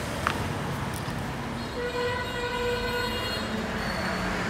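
A long, steady horn tone sounds from about two seconds in and holds to the end, over a low background rumble, with a short click near the start.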